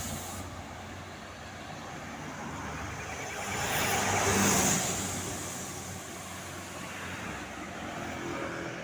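Road traffic: a vehicle passes close by, its engine and tyre noise swelling to a peak about halfway through and then fading, over a steady low engine hum.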